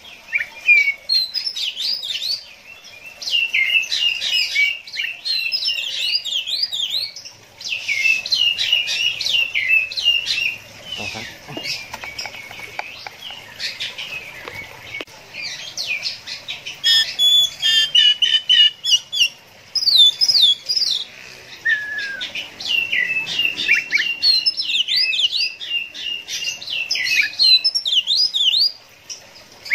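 Oriental magpie-robin singing a fast, varied song of whistles, trills and chattering notes. It sings in long phrases with short pauses between them.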